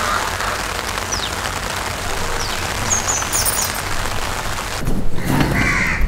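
A few short, falling bird chirps over a steady hiss. Near the end the hiss stops abruptly and a different, patchier background comes in.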